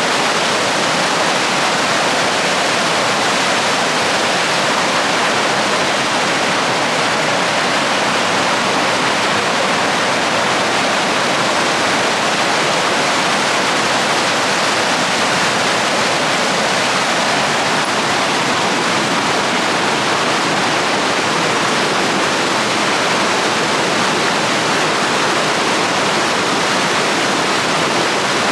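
Mountain stream rushing over rocks in a gorge: a loud, steady white-water roar with no change.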